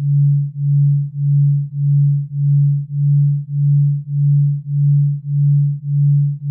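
A low, pure electronic tone that swells and fades evenly, a little under twice a second. It is a delta-wave sleep tone, pulsing at a delta-range rate.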